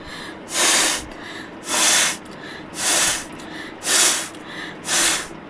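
A person blowing hard through the nose: five short, forceful nasal blasts about a second apart, with fainter breaths between them.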